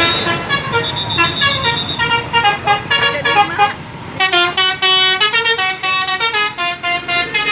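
Bus telolet basuri musical horn playing a tune: a quick run of short horn notes stepping up and down in pitch, with a brief pause about four seconds in.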